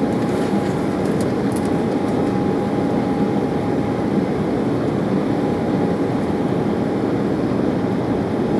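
Steady cabin noise inside an Embraer 190 airliner with GE CF34 turbofans: an even rush of engine and airflow noise with a faint steady whine.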